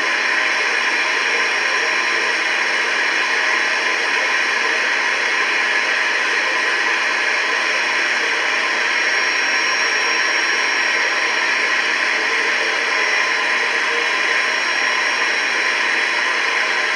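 Steady radio static hiss from a weather radio receiver, with no clear voice or tone coming through.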